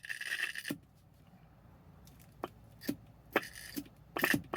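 A disassembled, rusted Humvee horn with its leads touched to a 24-volt battery gives only a few short raspy buzzing bursts, each under a second, with a couple of sharp clicks between them. It sputters instead of sounding, because the horn is pretty much dead.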